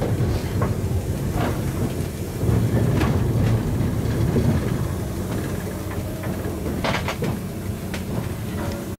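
Steam locomotive cab on the move: a steady low rumble of the running locomotive, with scattered sharp knocks, several close together near the end.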